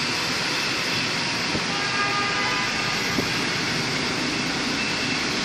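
Steady road and traffic noise from a moving car on a rain-soaked street: an even hiss.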